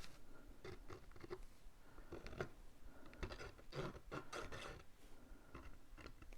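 Faint rustling, scraping and light tapping of cardstock pieces being handled while glue goes on the tabs of a paper box.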